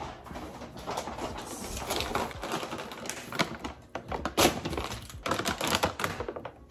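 Plastic candy bags crinkling and rustling as they are handled and waved about, a dense run of crackles and clicks that is loudest about four and a half seconds in.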